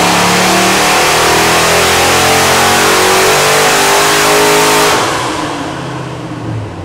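Twin-turbo, intercooled 427-cubic-inch LS V8 making a full-throttle pull on an engine dyno at 14.7 pounds of boost, its revs climbing steadily to about 6,000 rpm. About five seconds in the throttle closes and the engine winds down, quieter, its pitch falling.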